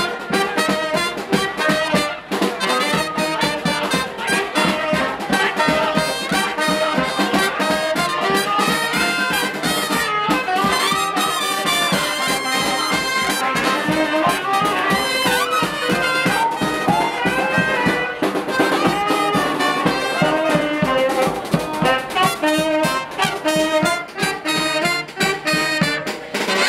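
Brass band riding on the giglio platform, trumpets and trombones playing a tune over a drum.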